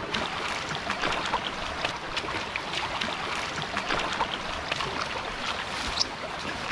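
Small stream water splashing and trickling, with many small irregular splashes and clicks at a steady level.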